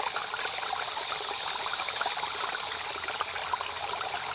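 Steady trickling, bubbling water, a constant hiss laced with many small splashes.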